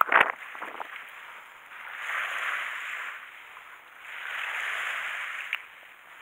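Sea waves washing in on the shore twice, each rush swelling and fading over about a second and a half, after a short knock right at the start.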